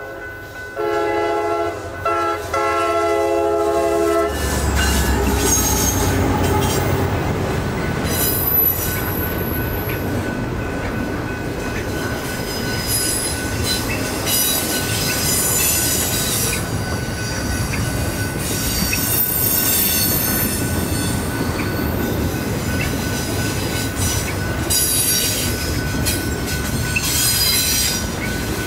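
Freight train horn sounding its chord in blasts, the last ending about four seconds in as the locomotive reaches the crossing. Then a double-stack intermodal container train rolls past: a steady rumble of cars with wheel squeal that comes and goes.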